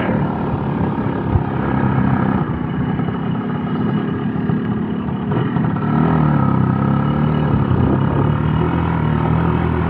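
Motor vehicle engine running, heard from on board while riding along a road; about six seconds in the engine note rises and grows louder.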